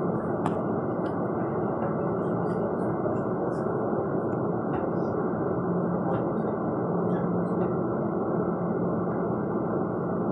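Metro train running at speed through a tunnel, heard from inside the front car: a steady rumble of wheels on rail. A low steady hum joins about halfway through, with faint scattered clicks.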